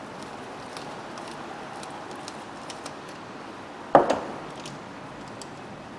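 Faint handling clicks over steady workshop room tone, then one sharp knock about four seconds in as a screwdriver is put down on the wooden workbench.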